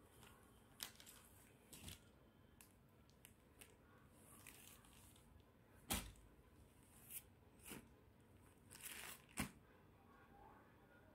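Clear plastic packaging and cloth rustling as they are handled: a string of short crinkles, the loudest about six and nine seconds in.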